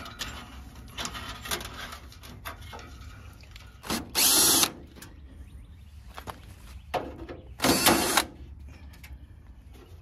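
A DeWalt cordless drill spins out the sheet-metal screws holding the condenser's top cover, in two short whirring bursts: one about four seconds in and one near eight seconds. Light clicks and knocks of handling come between them.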